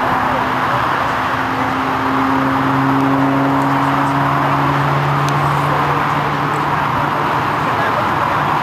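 Steady roar of road traffic, with a passing vehicle's engine hum that rises a little and fades over several seconds.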